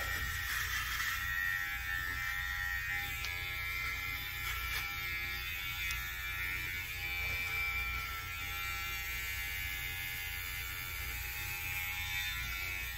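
Handheld electric shaver buzzing steadily as it is run over a shaved scalp, touching up the last patches of hair.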